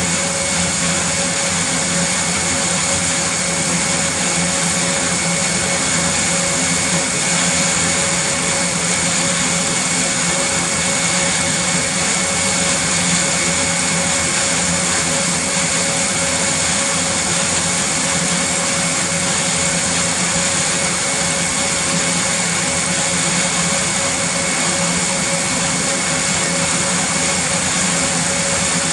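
Airbus A400M's Europrop TP400-D6 turboprop engines running steadily on the ground, their eight-bladed propellers turning. It makes a loud, even roar with a steady high whine over it.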